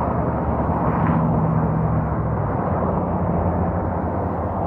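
Steady rumble of cars passing on a multi-lane road, mixed with a double-stack intermodal freight train rolling by. A low engine note swells about a second in, then eases.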